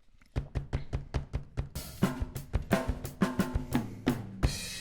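Rock track playing back from a DAW: a programmed drum kit with kick and snare under general compression, with the bass and guitar parts underneath, starting about a third of a second in. The mix is heard through a mid-range-only master EQ that strips the low and high end.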